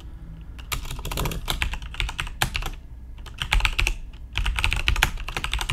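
Computer keyboard being typed on in quick runs of keystrokes with short pauses, over a steady low hum.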